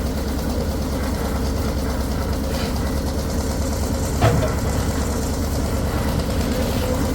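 Heavy engine running steadily at constant speed, with a single sharp knock about four seconds in.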